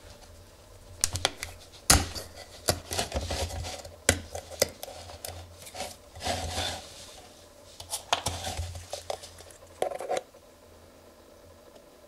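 Hands working the foil seal off the neck of a plastic Mannol engine oil bottle: irregular crinkling of the foil, rubbing and sharp plastic clicks, stopping about ten seconds in.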